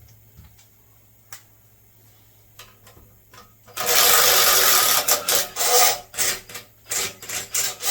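Handheld power tool, run in one long burst about four seconds in, then in a string of short trigger bursts, while bolts are taken out of an engine being torn down.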